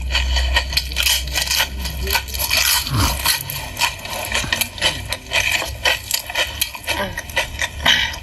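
Close-miked mukbang eating sounds: food, pork, chewed and crunched, heard as many short crisp clicks and crackles in quick succession. A low hum underneath fades out with a falling tone about three seconds in.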